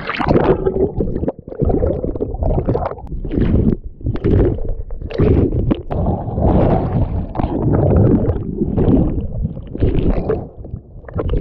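Seawater sloshing and gurgling around a camera that dips in and out of the sea while a surfboard is paddled out, in irregular surges that sound muffled while the camera is under the water.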